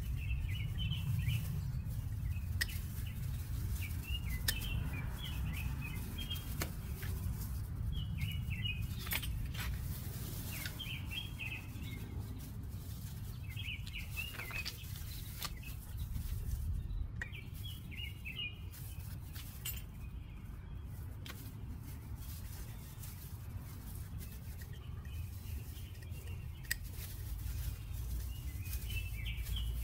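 Small birds chirping in short bursts every few seconds over a steady low rumble, with occasional light metallic clicks.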